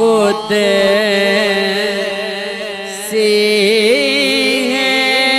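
Male voice singing an Urdu naat, drawing out long ornamented notes that waver and bend in pitch over a steady held drone. The melody shifts about four seconds in, then settles into a sustained note near the end.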